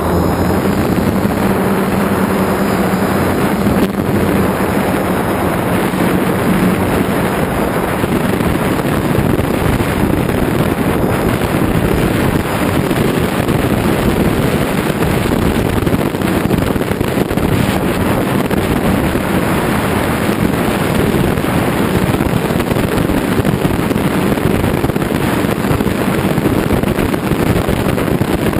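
DJI F550 hexacopter's brushless motors and propellers, heard from its onboard camera as a loud steady whirr mixed with wind buffeting the microphone in flight.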